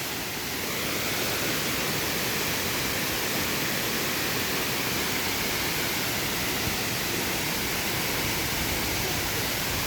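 Waterfall rushing: a steady, full roar of falling water that swells slightly about a second in.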